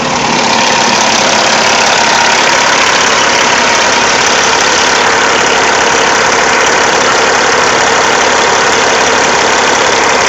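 Loud steady hiss of pressure escaping from the loosened coolant expansion-tank cap of a Caterpillar C15 diesel, with the engine running under it. Pressure is building in the cooling system and forcing antifreeze out, which the owner takes for a fault that means pulling the cylinder head.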